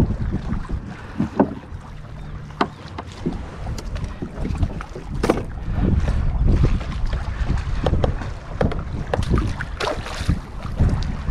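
Wind rumbling on the microphone over water moving against a plastic pedal kayak's hull, with scattered sharp knocks and clicks from handling on the kayak.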